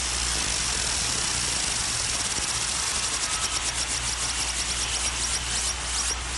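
Arena crowd roaring at the opening of a concert. About three seconds in, a fast, even pulsing high tone comes in over the crowd and near the end turns into quick falling sweeps.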